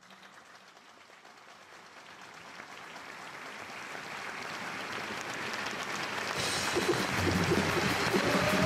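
Audience applause that swells steadily from faint to loud, with a held musical note coming in near the end.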